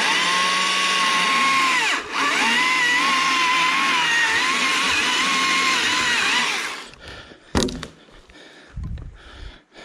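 Stihl MSA140C 36-volt battery chainsaw running and cutting up into the underside of a suspended log that pinched the bar from above. Its electric whine cuts out briefly about two seconds in, dips in pitch as the chain bites into the wood, then wavers under load until the saw stops near seven seconds. A sharp knock follows.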